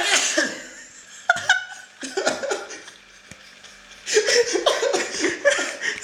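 A man sneezes once, a sharp noisy burst right at the start, then breaks into laughter from about four seconds in.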